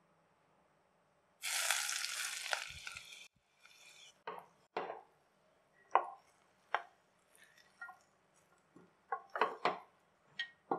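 Fried cashews in hot ghee tipped from a small pan onto cooked pulao, sizzling loudly for about two seconds. Then a wooden spatula mixes the rice in a pressure cooker, with a string of knocks and scrapes against the pot.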